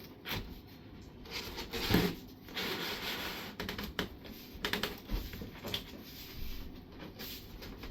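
Cardboard shelves being handled and slid into the slotted cardboard walls of a wardrobe: rubbing and scraping with scattered knocks and taps, the loudest knock about two seconds in.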